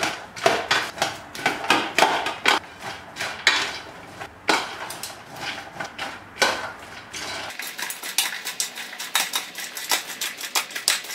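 Steel spoons scraping and clinking against a stainless steel plate while popcorn is stirred through with freshly poured caramel, in quick, uneven strokes a few times a second, with the rustle of the popcorn underneath.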